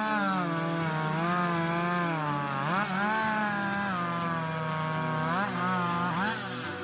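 Chainsaw at full throttle cutting wood, its engine pitch sagging and wavering under load, with brief dips and recoveries in revs a few times.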